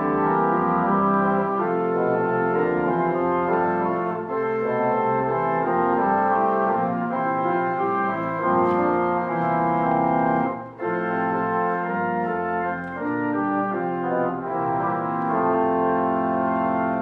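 Instrumental music with a brassy sound: held chords moving from one to the next, with a brief break about eleven seconds in.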